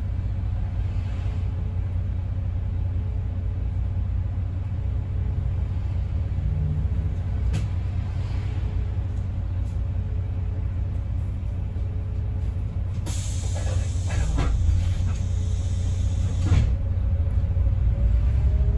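A bus's diesel engine idling with a steady low rumble while the bus stands still. About thirteen seconds in, compressed air hisses from the bus's air system for about three seconds.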